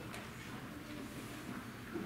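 Quiet hall noise from a seated audience: faint shuffling with a few soft knocks, and a low steady hum.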